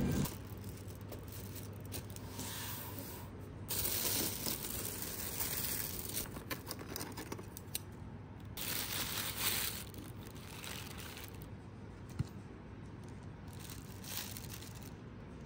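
Rustling and crinkling handling noises in several short spells, with a few scattered clicks.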